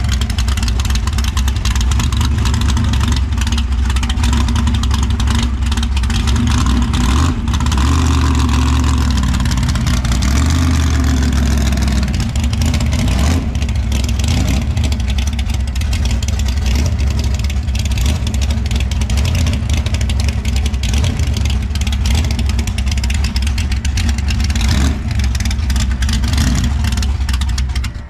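V8 engine of a Chevy S10 drag truck running loud and revved while held on the transmission brake, the brake holding the truck in place. The revs rise and fall a couple of times near the middle.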